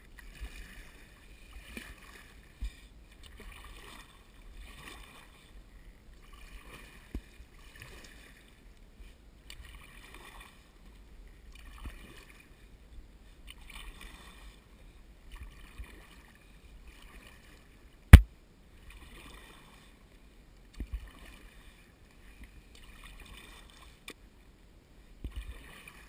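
Kayak paddle strokes dipping and splashing in the water, repeating roughly once every second or so. A single sharp knock about two-thirds of the way through is the loudest sound.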